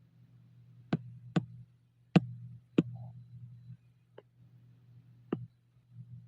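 Six sharp clicks at irregular spacing, from working the controls at a computer, over a low steady hum.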